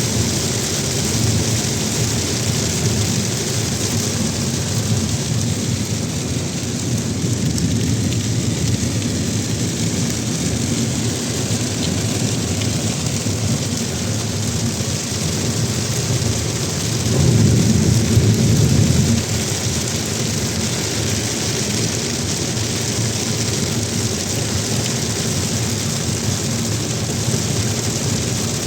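Heavy rain falling steadily, with a deep rumbling undertone; the low rumble swells louder for about two seconds past the middle.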